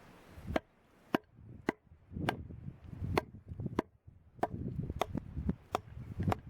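Firewood being chopped or split: a string of about ten sharp strikes, roughly one every half-second to second, unevenly spaced.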